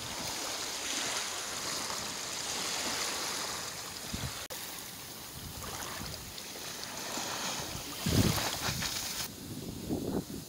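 Wind noise on the microphone over lapping lake waves, with a few low gusts buffeting the mic near the end.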